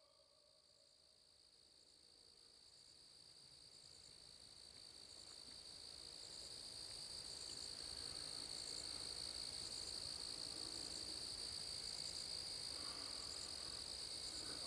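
Night insects in a faint, steady, high-pitched chorus of trilling, rising out of near silence over the first several seconds.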